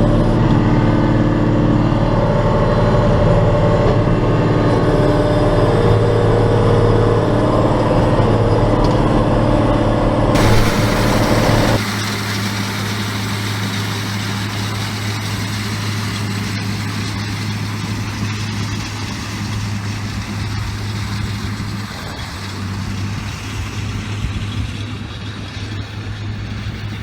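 Tractor engine running steadily. About eleven seconds in, the sound changes abruptly to a quieter, steady engine note.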